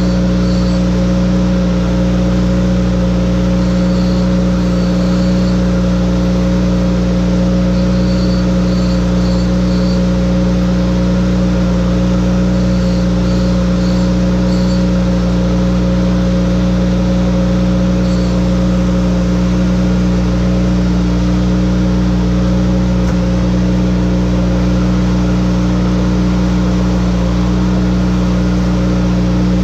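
Electric chain grinder's motor running with a steady hum while sharpening a 3/4-pitch harvester saw chain, with short high rasps in little runs of three or four as the wheel touches the cutter teeth; the rasps stop after about 18 seconds and the hum carries on.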